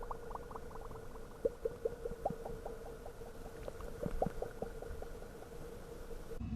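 Soft underwater-style bubbling: a quick run of short rising blips, several a second, over a faint steady tone, cutting off just before the end.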